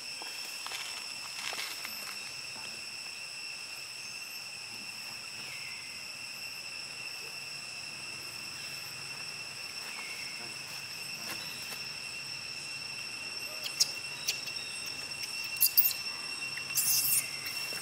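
A steady, high, multi-tone drone of insects. Near the end a few short, sharp high-pitched sounds stand out as the loudest.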